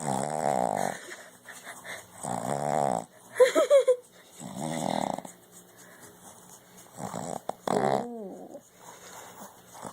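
Boston terrier puppy snoring in its sleep, a rattling snore with each breath, about every two to three seconds. A brief run of loud, high squeaks comes about three and a half seconds in, and a short falling whine near the end.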